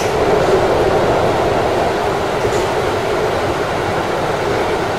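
Keikyu electric commuter train running at speed: steady wheel-and-rail running noise heard from inside the front car, with a faint click about halfway through.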